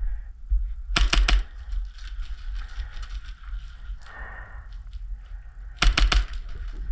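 Two short bursts of rapid airsoft gunfire, five or six sharp cracks each, about five seconds apart: the gas blowback AAP-01 pistol firing full-auto.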